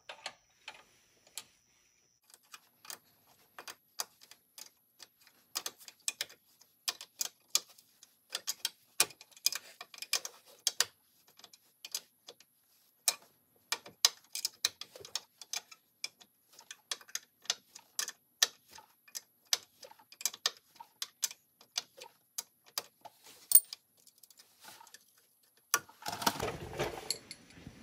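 Wrenches clicking and clinking on a bolt and nut in short, irregular clusters of strokes as the nut is turned to press an alignment pin into its hole, with a louder, longer clatter near the end.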